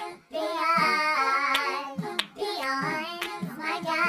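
A choir singing, high-pitched voices in a lively song, with a few sharp hand claps.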